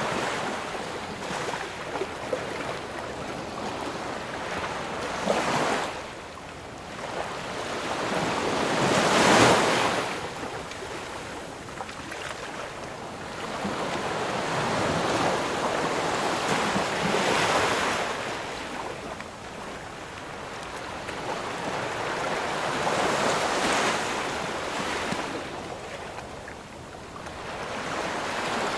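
Ocean waves breaking, surf surging and washing back in slow swells every several seconds, the loudest wave about a third of the way in.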